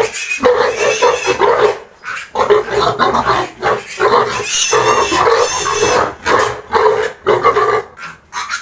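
Piglets squealing loudly and repeatedly in distress as they are picked up and carried by hand into the pen.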